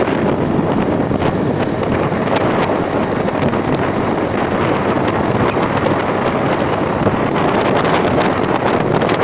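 Steady wind rushing over the microphone while riding in a moving vehicle, with the vehicle's running noise mixed in beneath it.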